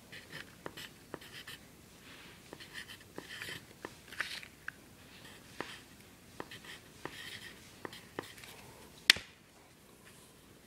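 Pencil writing on graph paper: faint, short scratchy strokes and little taps as numbers are written, with one sharp click about nine seconds in.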